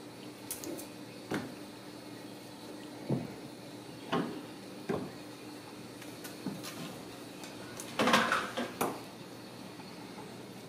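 Ragdoll kittens' paws thumping and skittering on a hardwood floor as they pounce and land, a scattering of separate knocks with the loudest flurry about eight seconds in, over a faint steady hum.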